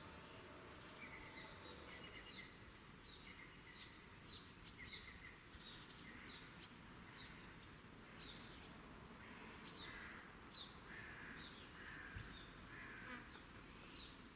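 Faint outdoor nature ambience: high chirping calls repeat about twice a second over a low background hiss, with short trills lower down that grow busier in the second half.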